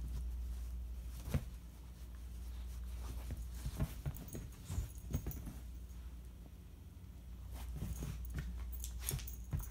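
German Pinscher puppy playing roughly with a plush puzzle toy on a padded sofa: irregular soft thumps, knocks and rustles as the toy is shaken, tossed and pawed, bunched into a few busy spells.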